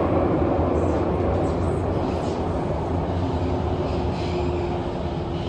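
Cabin sound of a Kawasaki & CRRC Sifang CT251 metro train running: a steady rumble of wheels and running gear with a low hum and a faint whine. The whine comes up about halfway through, while the overall sound eases off a little.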